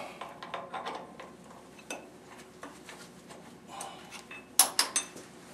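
Metal-on-metal handling as a drill bit is taken out of a lathe's drill chuck: light clicks and rattles in the first second, then three sharp metallic clinks near the end.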